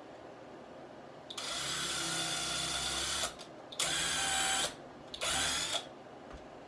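Power drill driving a screw into the wooden frame, run in three spurts: a long one of about two seconds, then two shorter ones.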